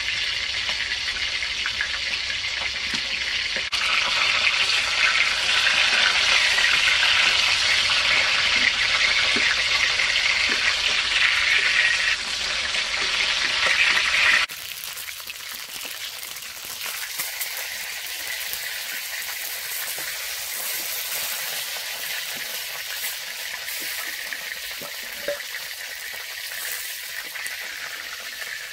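Whole fish frying in hot oil in a wok, a steady loud sizzle. About fourteen seconds in it drops suddenly to a quieter, thinner sizzle.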